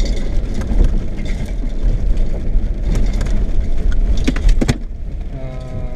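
Car driving over a rough dirt track, heard from inside: a steady low rumble of road and engine noise with sharp knocks and rattles, the loudest two a little past four seconds in.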